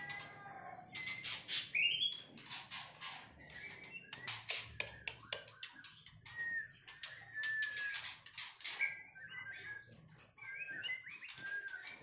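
White-rumped shama singing in its cage: a busy song of quick sharp chirps and clicks mixed with short clear whistles, the whistles standing out more in the second half.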